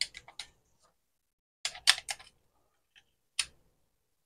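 Sharp plastic clicks and snaps as AAA batteries are pressed into the battery holder of an opened Aneng AN8008 multimeter and the meter is handled. They come in a quick cluster at the start, another about two seconds in, and a single click shortly before the end.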